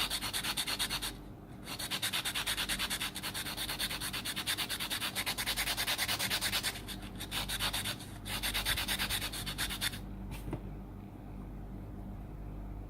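Hand sanding of an XT-150 connector's metal contact in quick, even back-and-forth strokes, pausing briefly twice and stopping about ten seconds in. The sanding cleans spark marks off the contact to give better electrical contact.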